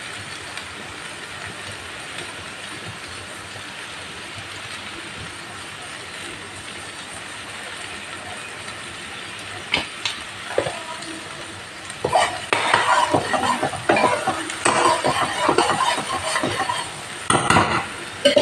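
Tomato masala gravy sizzling steadily in a metal kadai, with a couple of sharp taps about ten seconds in. From about twelve seconds a spoon scrapes and clatters against the pan as the masala powder is stirred in.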